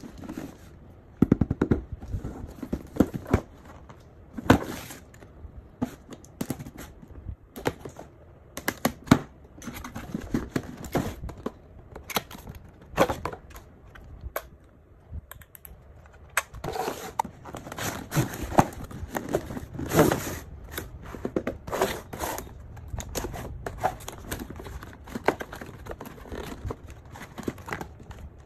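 Cardboard box and packaging being handled: irregular knocks, taps and scrapes of cardboard and plastic, with a busier stretch of rustling and crinkling in the second half.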